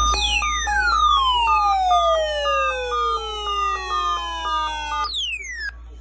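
Weather alert radios sounding their alarm for a severe thunderstorm watch: a rapid alternating two-tone electronic beep runs alongside a siren-like sweep that falls steadily in pitch for about five seconds. Then a second, quicker falling sweep cuts off abruptly near the end.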